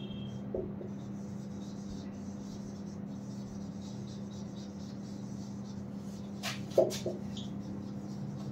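Marker pen writing on a whiteboard, scratching and squeaking in short strokes, with a couple of sharp clicks about two-thirds of the way through. A steady low hum runs underneath.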